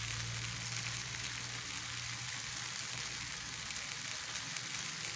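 Pomfret fish sizzling as it grills, a steady hiss with fine crackles, its sweet-soy glaze starting to char dark. A low steady hum runs underneath.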